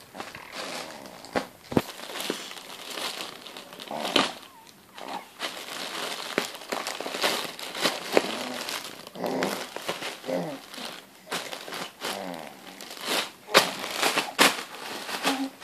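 Crinkling and rustling as something crinkly is handled and crumpled, with many irregular sharp clicks and crackles.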